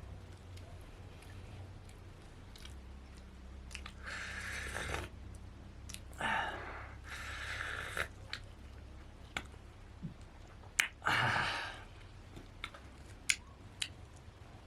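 A person eating: several bursts of chewing and crunching, with a few sharp clicks in between.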